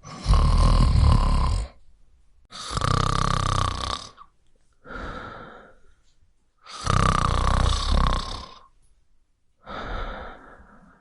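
A person snoring: five breaths in about eleven seconds. The three loudest are long, rattling snores lasting over a second each, and two shorter, softer breaths come between them.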